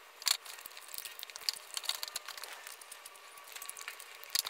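Faint scattered clicks and light scrapes of a metal fork against open tuna cans and a food cup as tuna is picked out to taste, with a sharper click about a third of a second in and another near the end.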